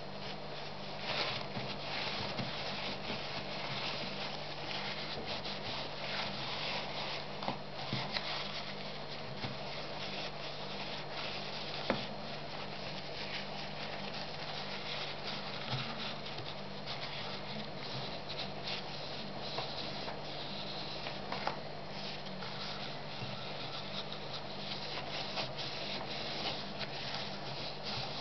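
Paper tissue rubbing and rustling against the brake caliper's cast metal as its piston bore is wiped clean, with scattered small clicks and one sharper click about halfway through, over a steady low hum.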